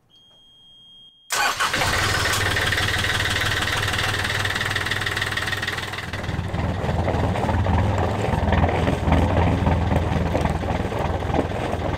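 Starboard Yanmar marine diesel starting: a steady high beep from the key-on alarm buzzer, then the engine catches suddenly a little over a second in and settles into a steady idle. This is the first start after the cooling-system rebuild (new hoses, cleaned heat exchanger, new mixing elbow). About halfway through, the running sound turns deeper and fuller, heard at the hull-side exhaust outlet.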